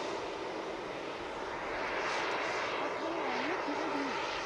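Radio-controlled model aircraft flying overhead: a steady rushing engine noise that dips a little and swells again about halfway through.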